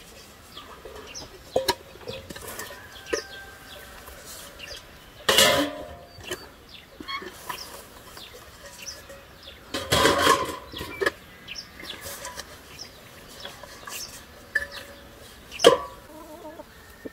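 Chickens clucking, broken by three loud clatters of empty metal buckets being handled and set down on stone: about five seconds in, a longer one about ten seconds in, and one near the end.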